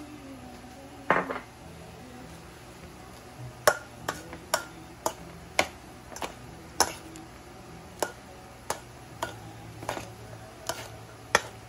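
Metal tongs tossing salad in a stainless steel mixing bowl, clinking against the bowl in short sharp clinks, about two a second from roughly four seconds in.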